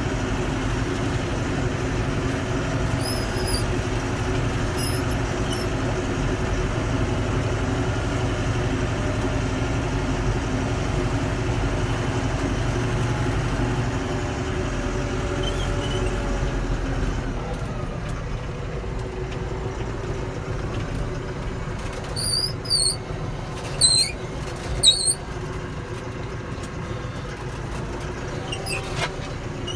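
A vehicle engine running steadily, turning quieter a little past halfway. A few short, high squeaks come near the end.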